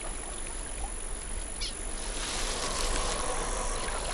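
Water sloshing and plants rustling as an anaconda moves through water hyacinth at the river's edge, growing louder about halfway through, with a brief high bird chirp.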